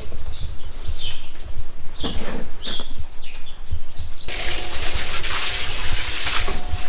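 Small birds chirping in quick, short calls over a low rumble, then, about four seconds in, a steady rushing hiss starts abruptly and covers them.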